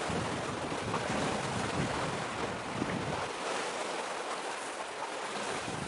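Wind and surf at the shoreline: a steady rushing hiss, with gusts buffeting the microphone in the first half that die down a little past halfway.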